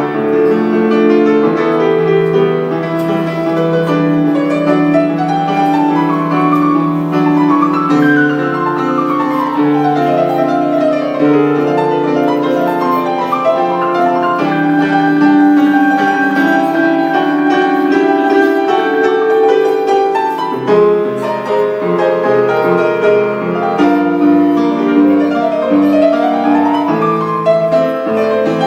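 Instrumental music led by piano or keyboard, with quick rising and falling runs over sustained chords.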